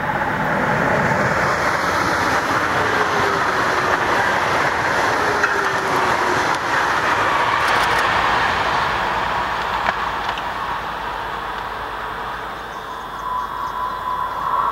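High-speed electric train passing at speed: a steady rush of wheel and air noise with a faint falling tone as it goes by, easing off after about twelve seconds. Near the end a second train approaches, with a rising rush and a steady whine.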